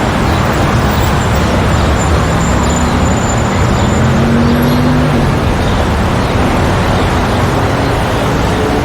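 Street traffic: a steady, dense rumble of road vehicles, with one engine's tone rising in pitch between about three and five seconds in.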